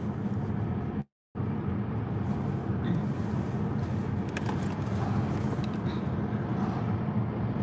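Steady road noise inside a moving car's cabin: a low rumble of tyres and engine, with a few faint light clicks or rattles. The sound cuts out completely for a moment about a second in.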